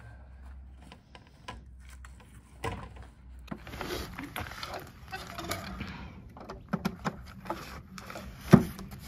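Handling noises from a portable power station in a padded carry bag being set down on concrete and its cover pulled open: rustling and scraping, a few short clicks around seven seconds in, and one sharp knock about eight and a half seconds in.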